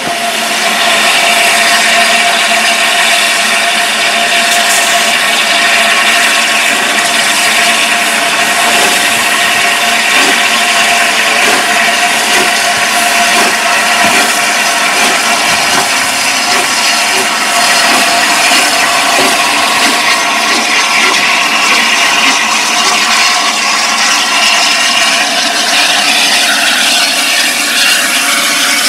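Steam hissing steadily from the Peppercorn A1 Pacific steam locomotive 60163 Tornado, a continuous loud hiss with a faint steady tone running through it.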